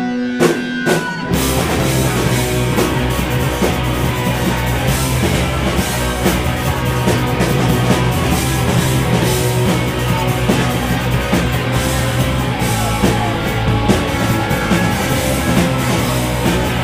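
Live rock band playing loud. A few drum hits over a held note open it, then the full band comes in about a second in and plays on steadily.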